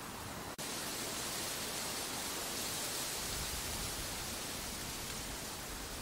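Steady hiss of wind with no bird calls, and a low rumble of wind buffeting the microphone from about halfway. A brief dropout comes about half a second in, where the sound track is cut.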